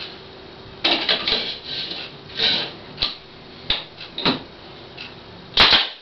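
Nail gun firing into the thin wooden parts of a beehive frame: a series of sharp shots at uneven intervals, the loudest near the end.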